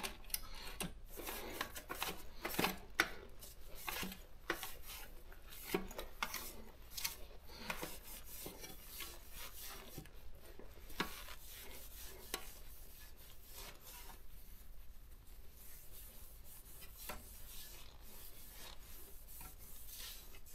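A brush scrubbing the body of a Daro 20 typewriter during cleaning: irregular rubbing and scraping strokes with occasional light knocks, quieter in the second half.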